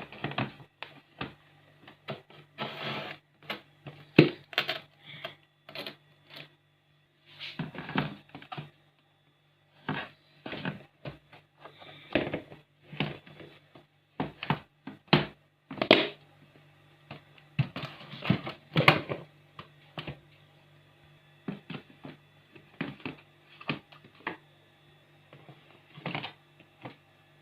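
Plastic storage containers and other items clattering, knocking and rattling as they are shifted and pushed around inside a refrigerator, in irregular bursts of short knocks, over a faint steady low hum.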